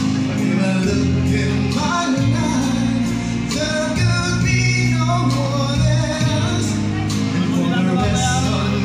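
A live band playing, with a man singing.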